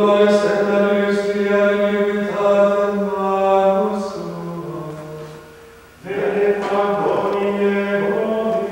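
Men's voices chanting plainchant in unison. Each phrase is held mostly on one note and drops lower at its close; after a short pause a new phrase begins about six seconds in.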